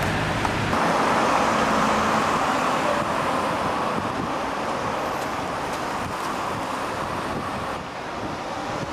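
Steady road traffic noise, a constant wash of sound that grows slightly louder about a second in.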